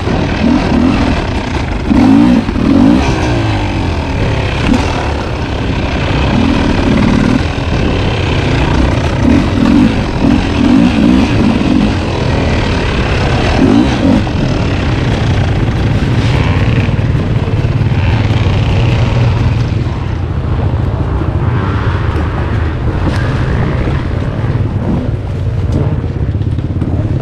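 Two-stroke dirt bike engine being ridden off-road. It revs up in repeated short surges and eases off between them, then runs more steadily through the later part.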